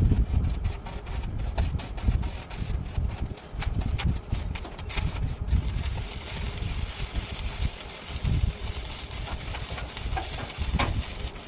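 Electric arc welding: the arc crackles with irregular sharp clicks at first, then settles into a steadier high-pitched sizzling hiss from about halfway in, over a low rumble.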